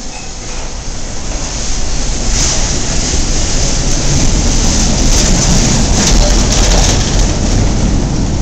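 Wuppertal Schwebebahn suspended monorail car running past a station platform: a rumble and hiss of its steel wheels on the overhead rail. It grows over the first few seconds, is loudest in the middle, and eases slightly near the end.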